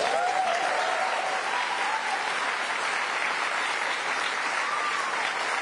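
A crowd applauding steadily, with a voice or two calling out over the clapping: one long call at the start and a short one near the end.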